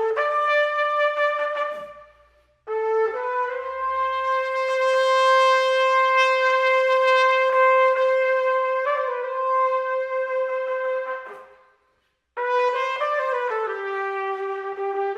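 Background music: a slow solo brass melody of long held notes. The phrases fade out and break off briefly about two and a half seconds in and again near twelve seconds.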